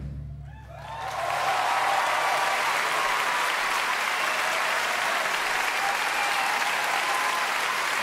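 A large concert audience applauding after a song, while the band's last low note dies away at the start. The applause swells about a second in and then holds steady.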